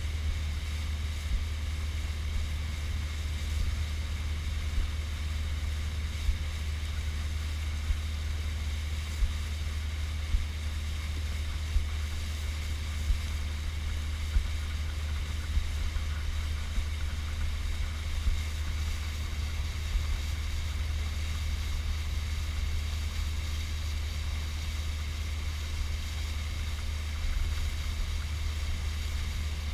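Small boat under way: a steady low hum from its motor carried through the hull, with small waves slapping the bow about every second and a half.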